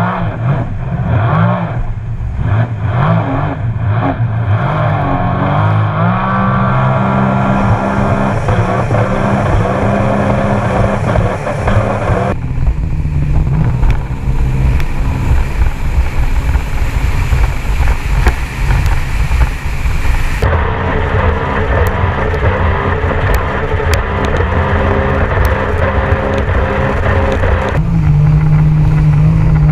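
Sea-Doo RXT-X 300 jet ski's supercharged Rotax three-cylinder engine running hard at speed, heard from a mount on the craft, with rushing water spray and wind. The engine pitch climbs about six seconds in, and the sound shifts abruptly three times as different runs follow one another.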